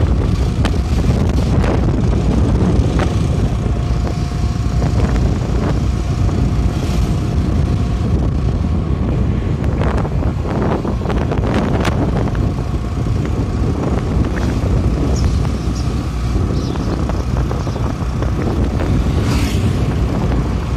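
Steady rumble of a vehicle driving along a road, with wind buffeting the microphone. A few short knocks come around ten to twelve seconds in.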